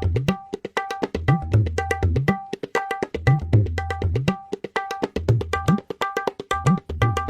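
Tabla playing a fast, repeating rhythm: ringing strokes on the small right-hand drum with deep notes on the bass drum that bend upward in pitch.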